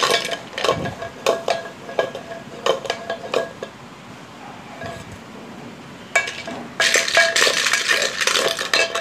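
Plastic toy building blocks clattering against an aluminium cooking pot as they are stirred with a wooden spatula, the pot ringing faintly after the knocks. Scattered knocks at first and a quieter spell in the middle, then a dense, continuous clatter for the last three seconds.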